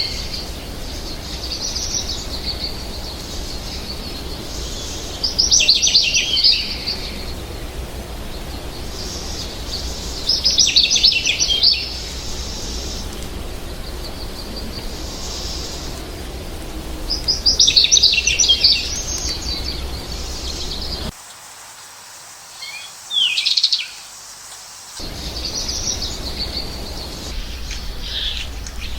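American goldfinch singing: four loud bursts of rapid, high warbling notes a few seconds apart, with quieter song between, over a steady background hiss and low hum. The background noise drops out for a few seconds near the end.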